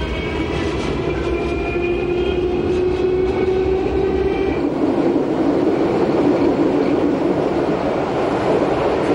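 Train running on the rails. Several steady tones, one rising slightly, sound over the first half, then give way to a louder, even rumble.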